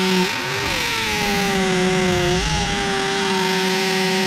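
Corded Warrior drill with a masonry bit boring into a concrete slab: a steady motor whine over the grinding of the bit. The whine sags about half a second in as the bit loads up, then picks back up about two and a half seconds in.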